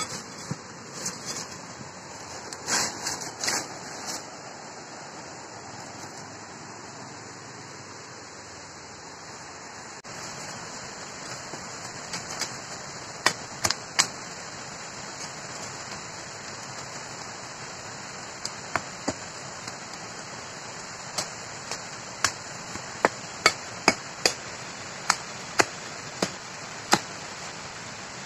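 Large knife chopping into bamboo: about fifteen sharp single blows in the second half, several in quick pairs, over a steady high hiss. In the first few seconds there is crackling of dry bamboo leaves and stems being pushed aside.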